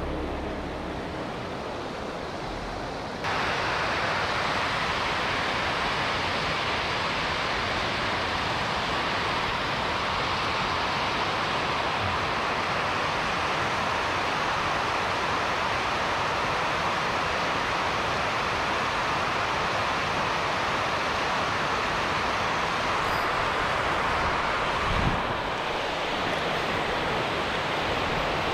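Water rushing over a low concrete river weir: a steady hiss of whitewater that gets louder and brighter about three seconds in. A brief low knock comes near the end.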